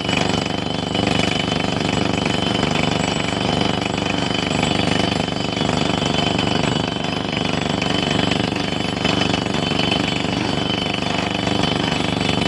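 Heavy construction machine working with a fast, steady pounding rhythm.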